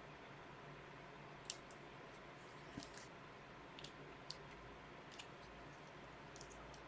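Near silence broken by about five faint, sharp clicks, the loudest about a second and a half in.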